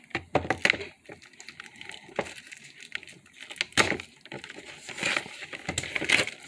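Cardboard trading-card product box being handled and opened by hand: irregular taps, scrapes and rustles.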